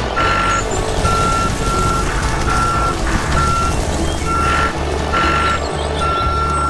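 Vehicle reversing alarm beeping repeatedly: a single steady tone about once a second, each beep about half a second long, over a low engine hum.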